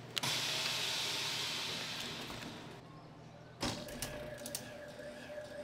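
Vacuum sealer letting its air back in: a sharp click, then a loud hiss of air that fades away over about two and a half seconds. A second sharp click comes about three and a half seconds in, followed by a steady hum.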